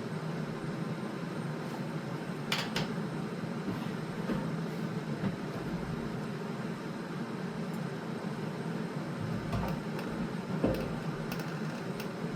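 Steady low hum with a few sharp clicks and knocks, from hands and tools working on a replacement fuel tank while trying to get its mounting holes to line up.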